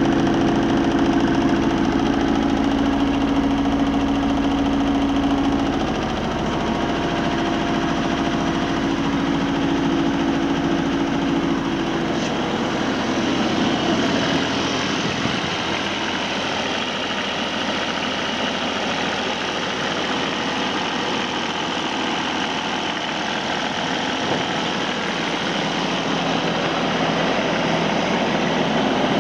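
Kubota RX-306E mini excavator's diesel engine idling steadily. A low hum with a fast even pulse fills the first half, then gives way to a more even rushing sound about halfway through.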